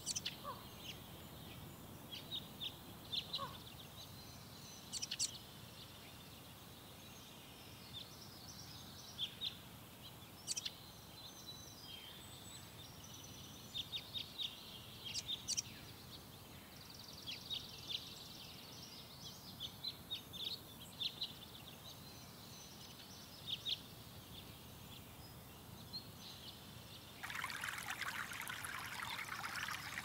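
Wild birds chirping, many short high calls scattered over a faint outdoor background. Near the end a stream's running water comes in and becomes the loudest sound.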